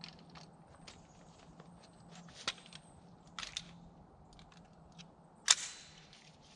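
A single sharp crack about five and a half seconds in, with a short fading tail, after a few fainter clicks and knocks.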